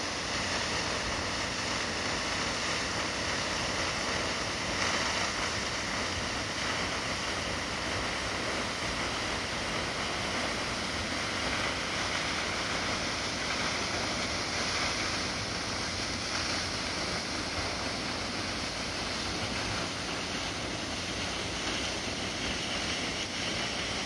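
Steady rush of a waterfall: an even noise of falling water with no breaks.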